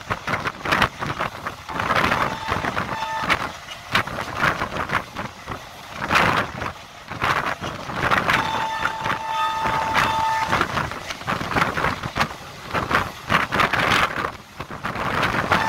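A passenger train running at speed, heard from an open coach doorway: uneven rushing wind and rail noise that swells and fades. The locomotive horn sounds briefly about three seconds in, then in one long blast of about two seconds near the middle.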